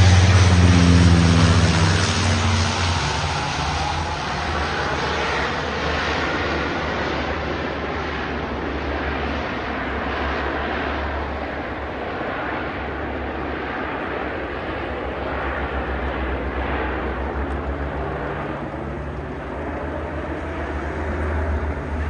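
Twin-engine amphibious firefighting water bomber passing low overhead, its engines loudest and dropping in pitch in the first couple of seconds, then droning steadily and slowly fading as it flies away over the sea.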